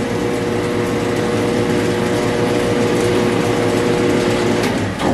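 Pressure washer pump running steadily under load, pushing water through a restricted bypass valve with about 250 psi on the test gauge. About five seconds in, the sound jumps briefly and then drops off sharply as the pump is shut off.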